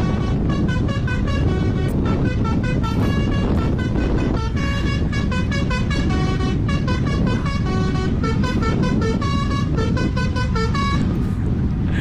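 Truck's telolet basuri musical horn playing a quick tune of short multi-tone notes, several a second with a few brief pauses, over the steady rumble of the moving truck and road.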